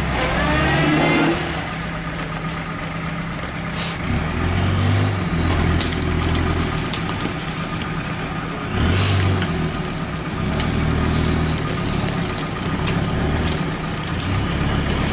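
Lada Niva's engine revving in repeated surges and easing off as the car pushes through deep water in a muddy stream. Two short hissing bursts stand out, about four and nine seconds in.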